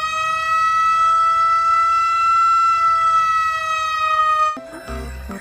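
Police car siren holding one long steady wail, its pitch drifting only slightly, that cuts off suddenly near the end. Music with a beat starts right after.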